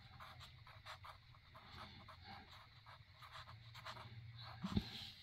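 Graphite pencil shading on paper: faint, quick scratchy strokes over a low steady hum, with one brief low sound near the end.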